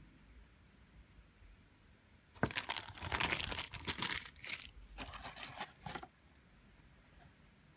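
Clear plastic packaging bag crinkling as it is handled, starting about two and a half seconds in and running for around three and a half seconds, loudest at first, then stopping.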